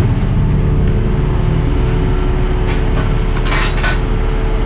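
Diesel engine of a mobile boat travel lift running steadily with a low rumble, carrying a catamaran in its slings. A few short metallic clinks and rattles come about three seconds in.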